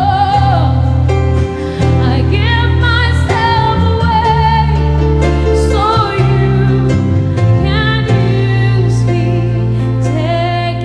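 A woman singing a slow worship song into a microphone, holding long notes with vibrato, over instrumental accompaniment with sustained low bass notes.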